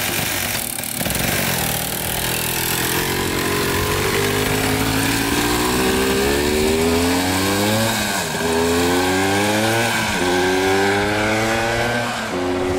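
Yamaha Blaster ATV's single-cylinder two-stroke engine under hard acceleration, its pitch climbing through the gears and dropping back sharply twice, about 8 and 10 seconds in, at the upshifts, then levelling off near the end.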